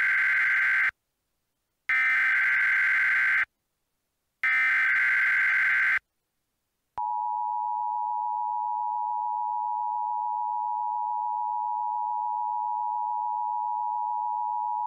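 Emergency Alert System header: three loud bursts of digital data tones (the SAME code), each about a second and a half, the first already under way, then the EAS two-tone attention signal held steadily for about eight seconds before it cuts off. The sequence signals that an emergency alert message follows.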